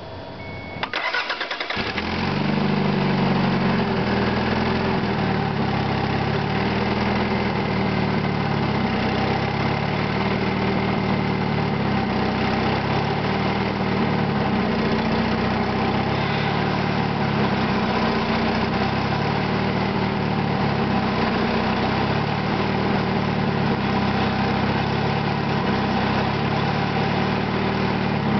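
Toyota MR2 engine cranking on the starter and catching about a second in, then idling steadily. The owner is recording it for a knocking noise.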